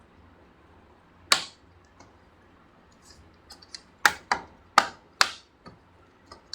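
Plastic clips of an HP Pavilion laptop's panel snapping into place as the panel is pressed down and seated: a sharp click about a second in, then a quick run of four clicks a little past the middle.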